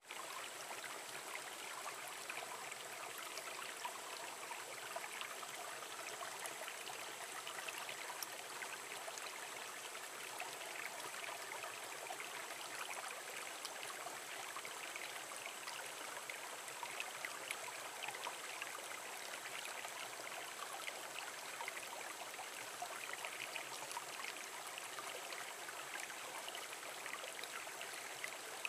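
A small woodland stream running over and between mossy rocks into a shallow pool: a steady rush of bubbling, splashing water, dotted with small splashes.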